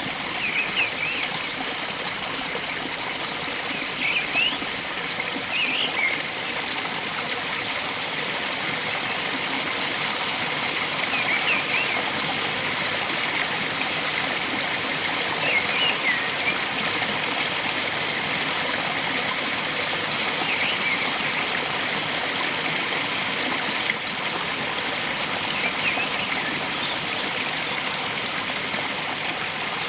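Steady rush of a flowing stream, with brief high bird chirps every few seconds.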